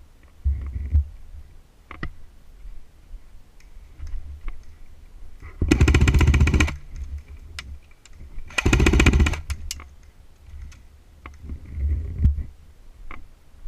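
Airsoft gun firing two fully automatic bursts of rapid clicking shots, each about a second long and a couple of seconds apart, with duller thumps and rustling of movement around them.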